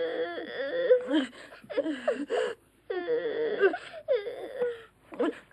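A person wailing and whimpering in a high voice: a string of broken, wordless cries with short gaps between them.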